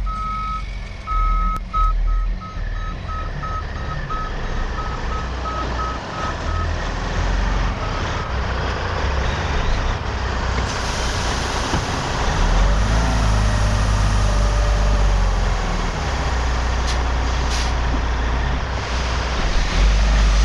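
Tandem-axle dump truck reversing, its backup alarm beeping evenly until about six seconds in. The diesel engine then runs louder as the hydraulic hoist tips the box, and the load of dirt starts sliding out near the end.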